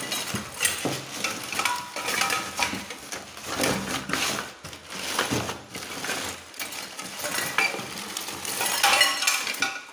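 A hand rummaging through a cardboard carton of electrical scrap. Plastic sheeting rustles while cables and small metal and plastic parts clatter and clink in irregular bursts.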